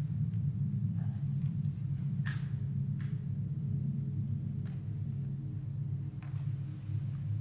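Steady low rumble of room tone in a small hall, with two short breathy hisses about two and three seconds in.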